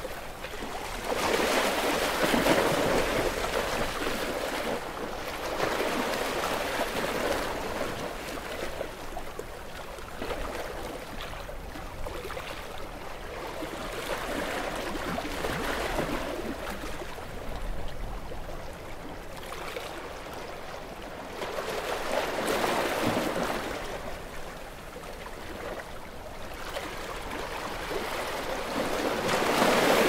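Small ocean waves washing in, with the noise of the water swelling and easing irregularly every few seconds.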